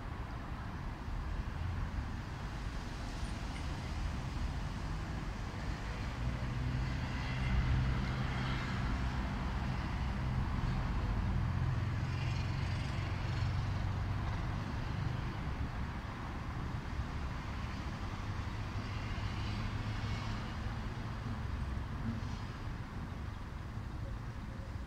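City street traffic: a continuous rumble of passing cars and tyre noise. A louder pass builds about a quarter of the way in and fades after the middle, and a smaller one comes later.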